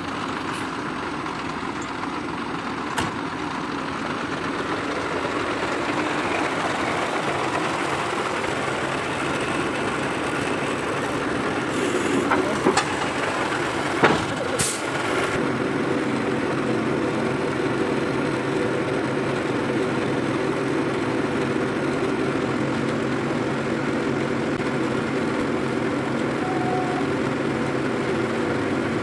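Tow truck's diesel engine running steadily while its winch cable is pulled out to the crashed truck, with a few sharp knocks from the hook and cable about halfway through.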